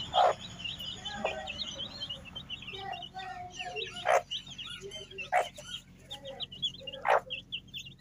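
A brood of chicks peeping continuously in quick, high chirps as they feed, with a hen giving about four louder, lower clucks.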